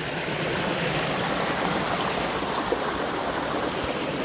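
A small, clear stream running over little falls, with the steady rush of flowing water.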